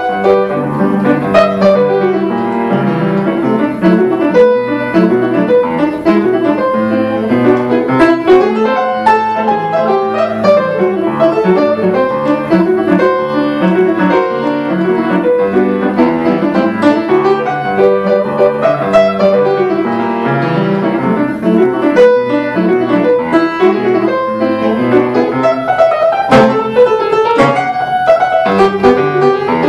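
Solo upright piano played in a lively Brazilian popular style, with quick, dense runs of notes over a steady bass.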